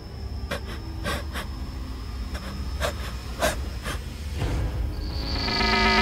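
Horror sound design: a low rumbling drone under a thin, steady high whine, broken by several short, sharp frightened breaths or gasps. From about four and a half seconds in, the sound swells steadily louder.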